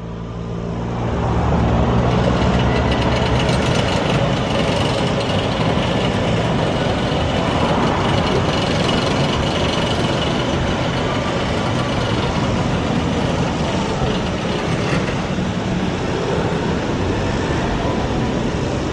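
Lightning Run, a Chance Rides steel roller coaster, with its train climbing the lift hill: a steady mechanical rumble and rattle over a constant wash of outdoor noise. A low engine hum sounds in the first few seconds, then fades.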